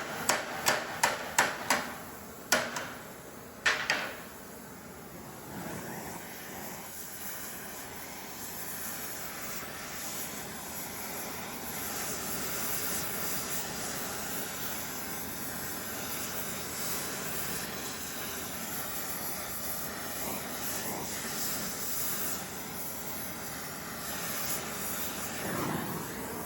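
Blacksmith's hammer striking metal on an anvil, about seven quick blows and then two slower ones, followed by a long steady rushing noise.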